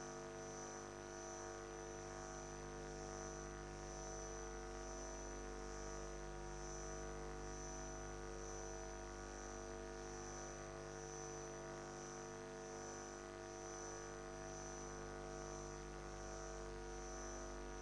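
Steady electrical hum and buzz made of many fixed tones, with a faint high whine that pulses a little more than once a second.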